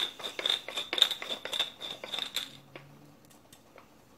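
Hand-twisted acrylic pepper mill grinding black peppercorns: a fast run of gritty clicks that stops about two and a half seconds in.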